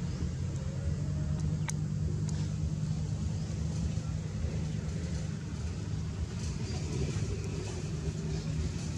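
Steady low rumble, with a single sharp click about two seconds in.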